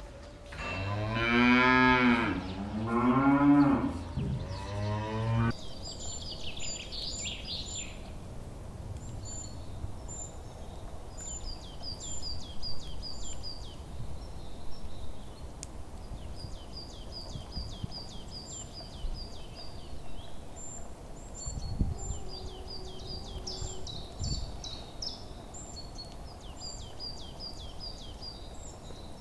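A cow mooing twice, two long low calls in the first few seconds. Then small birds chirp in quick repeated high notes.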